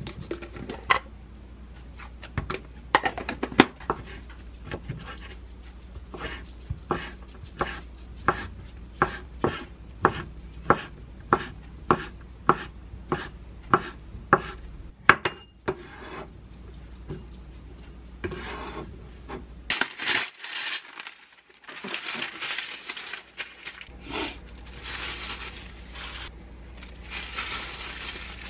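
Kitchen knife dicing ham on a wooden cutting board, the blade knocking the board in an even rhythm of about two strokes a second. About two-thirds of the way in the chopping stops and is followed by plastic rustling and crinkling as food is handled.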